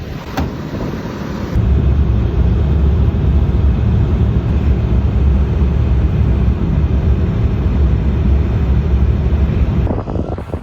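Versatile 150 tractor's engine running with a steady low rumble. It gets louder suddenly about a second and a half in and drops off just before the end.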